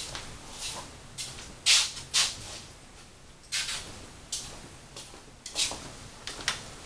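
Scattered short scuffing and rustling handling noises, about six in all, the loudest a little under two seconds in.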